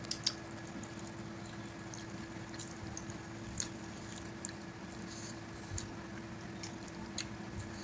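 Faint sounds of people eating chicken and rice by hand: scattered short wet clicks of chewing and of fingers working the food, over a steady background hum.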